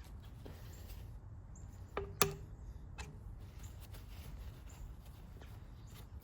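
Small metal shear parts clicking and knocking on a table as they are handled and wiped with a cloth. Two sharp clicks come close together about two seconds in, the second the loudest with a short ring, and a lighter click follows a second later.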